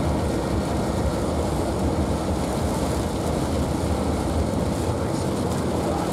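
Steady low rumble of road and engine noise inside a car's cabin while driving through heavy rain, with an even hiss of rain on the glass and body.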